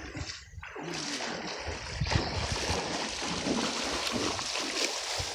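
River water rushing and splashing, a dense steady hiss that starts about a second in, with a few dull knocks underneath.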